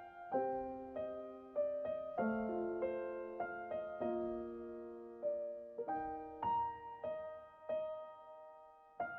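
Background music: a slow, gentle piano melody, struck notes ringing out and fading, several sounding together.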